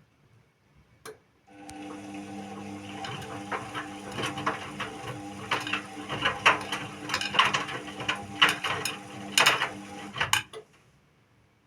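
Indesit WIU81 front-loading washing machine turning its drum during the wash: the motor starts after a click about a second in, runs with a steady hum and irregular clicks and rattles for about nine seconds, then stops near the end.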